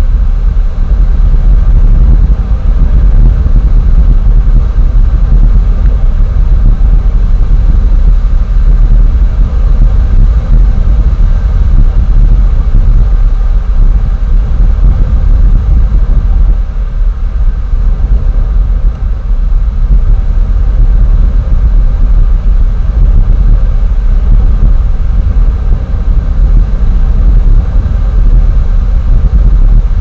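Wind buffeting an outdoor nest camera's microphone: a loud, steady low rumble that keeps flickering in strength, with a faint hiss above it.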